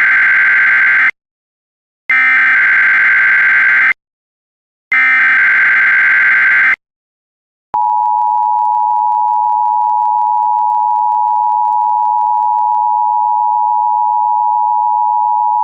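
Emergency Alert System SAME header data tones for a Required Monthly Test: three bursts of dense electronic tones, each under two seconds, with about a second of silence between them, the first already under way. About eight seconds in, the steady two-tone EAS attention signal starts and holds.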